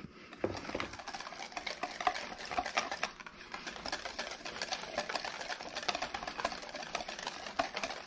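Wire whisk beating a thick yogurt-and-mayonnaise ranch dressing in a stainless steel bowl: steady, rapid clicking and scraping of the wires against the metal.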